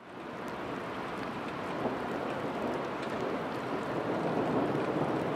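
Heavy rain pouring down steadily, fading in over the first second.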